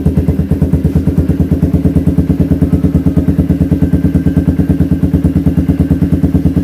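Suzuki Raider 150's single-cylinder four-stroke engine idling through a CHA RAMA 9 exhaust pipe with the silencer removed, a loud, steady, evenly pulsing exhaust note.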